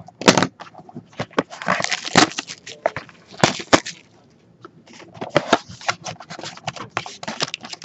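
A cardboard trading-card hobby box being handled and its hinged lid opened by hand: crackling, rustling and scraping with many sharp clicks, easing off briefly about halfway through.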